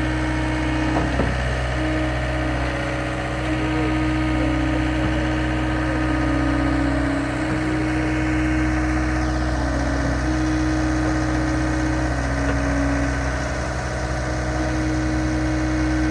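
Diesel engine of heavy equipment idling steadily, its pitch stepping slightly up and down every second or two.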